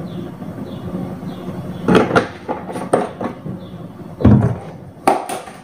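Several knocks and clunks of kitchen handling, the loudest a dull thump about four seconds in, over a steady low hum.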